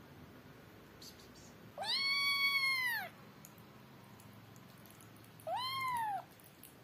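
Kitten meowing twice: a longer high meow about two seconds in and a shorter one near the end, each rising, holding and then falling in pitch.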